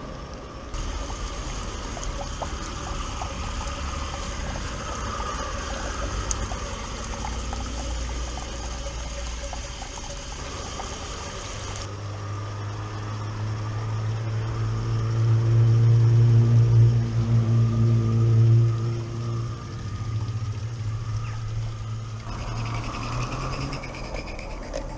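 Small-scale garden railway trains running on their track, in several short clips. In the middle, a steady low hum swells and then fades.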